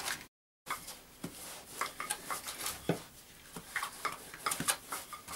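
Wooden rolling pin rolling out yeast dough on a wooden table: soft rubbing with scattered light knocks.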